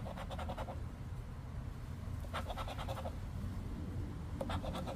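A poker-chip scratcher scraping the coating off a scratch-off lottery ticket. It comes in three short bursts of quick back-and-forth strokes: one at the start, one in the middle, and one near the end.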